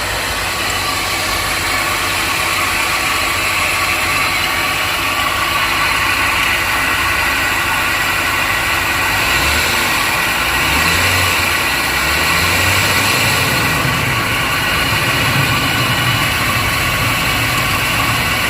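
2002 Chevrolet Silverado's Vortec V8 running at idle while hot, with a steady grinding whine over the engine note. The owner thinks it may be a bearing.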